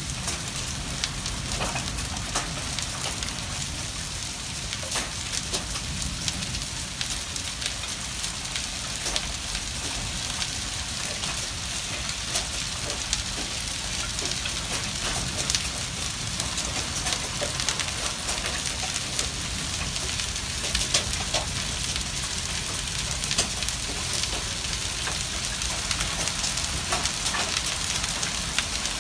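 Small hail falling steadily on a concrete walkway and gravel: a dense hiss with many sharp ticks of stones striking.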